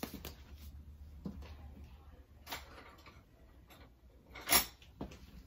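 A handful of short, sharp clicks and knocks from handling things in a kitchen, spread out with quiet between them; the loudest comes about four and a half seconds in.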